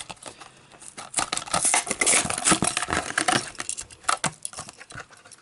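Crinkling and tearing of a diecast toy car's plastic-and-card blister pack being opened: a dense run of sharp crackles and clicks from about a second in, dying down near the end.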